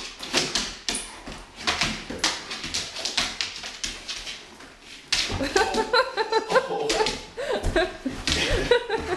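Quick taps and scuffles for the first few seconds, the claws of a large dog scrabbling on a hardwood floor. Then, from about five seconds in, the dog whines excitedly in wavering cries that rise and fall.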